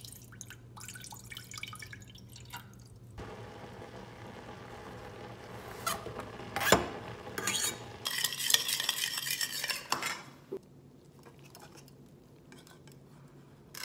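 Kitchen cooking sounds: water poured into a saucepan, then water boiling in the pot while sliced vegetables are scraped off a plastic cutting board with a knife, with one sharp clack. About eight seconds in comes a louder couple of seconds of splashing water, followed by light clinks of a metal strainer against a ceramic bowl.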